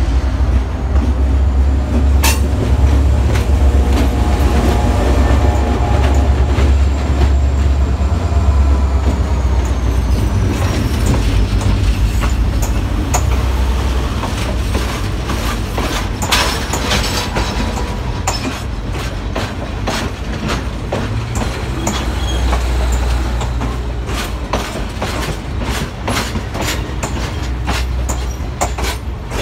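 Diesel-hauled passenger train passing close by. The locomotive's engine gives a heavy low rumble for the first ten seconds or so, with a thin high squeal slowly falling in pitch. Then the passenger cars roll past, wheels clicking rapidly over the rail joints.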